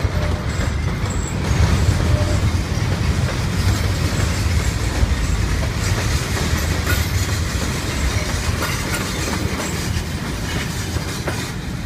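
A train passing: a steady rumble of rolling wagons with the clickety-clack of wheels over the rails.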